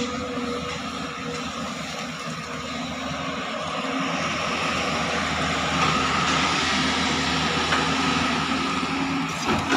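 JCB JS205 tracked excavator working: its diesel engine runs steadily under load with a hydraulic whine as the machine digs, lifts a bucket of earth, swings and dumps it. The whine grows louder about six seconds in.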